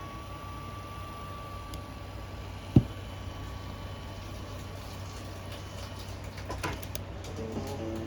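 Panasonic SX5 Walkman cassette player playing a tape: steady tape hiss with a faint steady tone that stops about six seconds in, one sharp click just under three seconds in, and a blues recording starting to come in near the end.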